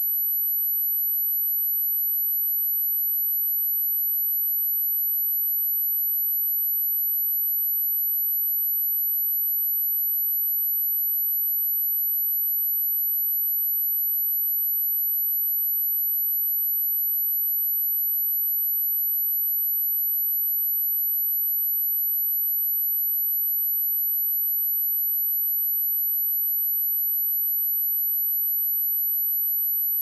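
Pure sine-wave test tone at 11847 Hz: one steady, very high-pitched whistle that holds at the same pitch and level without a break.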